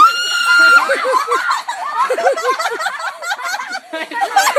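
A girl's piercing scream on one steady high pitch, followed by a rapid run of short squealing laughs.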